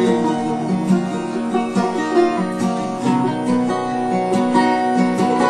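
A country song played on acoustic guitars, strummed and picked, in a stretch without lyrics.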